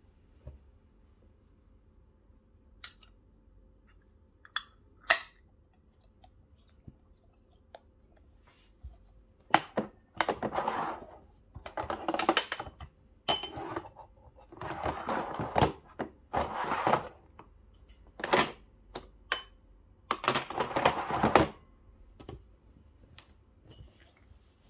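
Clinks and knocks of metal parts being handled on a Breville Barista Pro espresso machine, then a run of scraping and rubbing sounds, each about a second long, as its stainless steel drip tray and grille are worked on, with a few sharp knocks among them.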